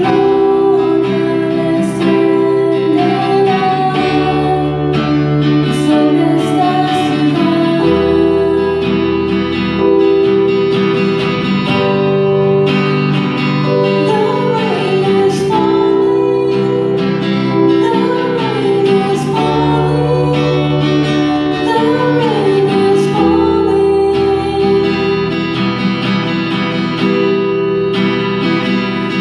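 Live band music: a strummed guitar and keyboard playing held chords, with a woman singing a melody over them.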